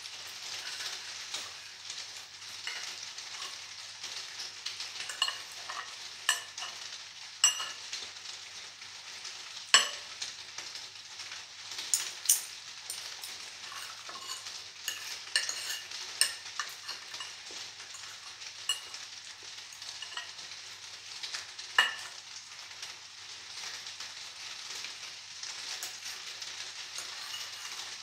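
Fork and knife clicking and scraping on a plate while cutting lasagna, with chewing, over a steady hiss. The sharpest clicks come about a third of the way in and again a little past three quarters.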